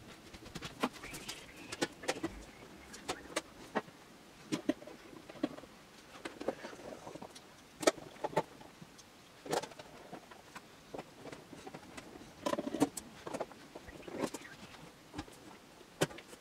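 Sheet-metal lid being fitted onto a rack-mount UPS chassis and fastened with a screwdriver: scattered light metal clicks, taps and scrapes at irregular intervals.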